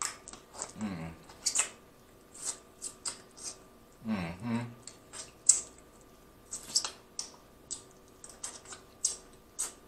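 Close-up mouth sounds of eating boiled crawfish: repeated wet sucking, slurping and lip-smacking as crawfish pieces and fingers are sucked clean, with two short hums about one and four seconds in.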